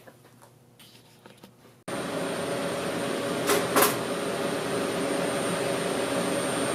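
Brother S700X1 CNC vertical machining center starting up with a sudden steady running noise and a thin high whine about two seconds in, with two short hissing bursts a little over a second later.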